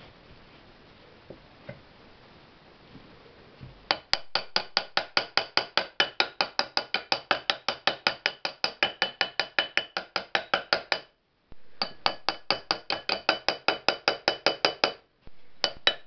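Rapid light hammer taps, about six a second, on an electric motor's end cover, driving the tight-fitting cover onto the shaft bearing; each tap rings with a metallic clink. The tapping starts about four seconds in and breaks off briefly twice.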